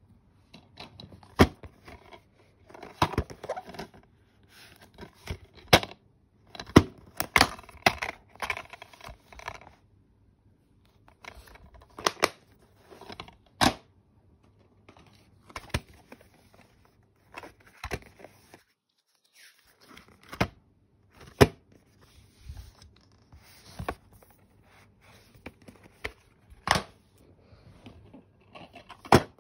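Plastic DVD cases being handled: sharp clicks and clacks at irregular intervals, with rustling in between.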